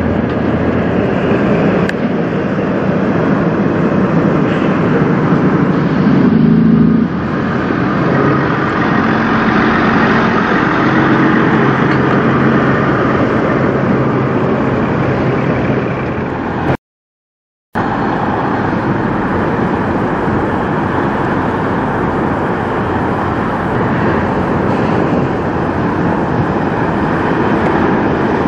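Diesel semi trucks running and pulling through: a long-hood Peterbilt hauling a heavy wheel loader on a lowboy trailer pulls away under load, then, after the sound cuts out for about a second past the middle, a Freightliner Cascadia tractor approaches.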